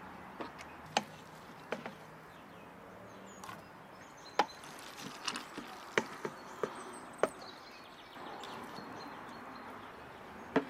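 Scattered sharp wooden knocks and clacks: a wooden spoon knocking against a stainless steel pot as noodles are stirred and dished out, and wooden bowls set down on a wooden table.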